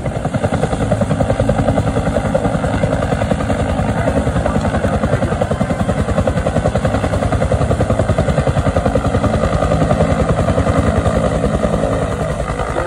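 Bell UH-1 Huey-type helicopter hovering, its two-blade main rotor beating in a rapid, even rhythm.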